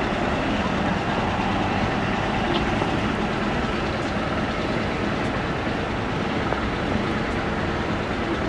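A tram running along its street rails past the listener, heard within steady city traffic noise.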